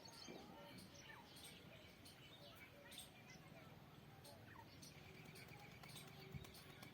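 Faint squirrel chirping: scattered short high chirps, then a quick, evenly spaced run of chirps in the last two seconds.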